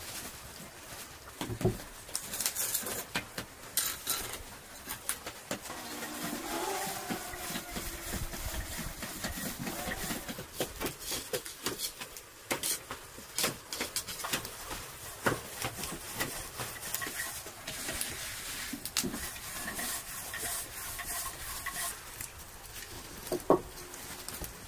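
Scattered light taps, clicks and rustles of hand food preparation: a wooden rolling pin knocking on a dough board, and fresh herb stems being snapped and stripped. One sharper click stands out near the end.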